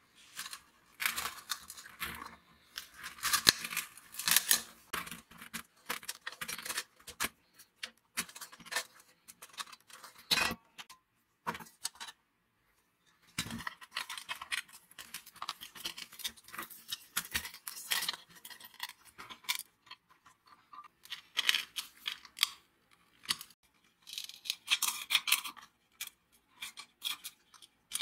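Clicks, scrapes and clinks of hand tools on rusty sheet-metal parts of a portable heater being dismantled: pliers working a rusted rod, thin metal pans being handled, a screwdriver prying at a ceramic terminal block. Brief pause near the middle.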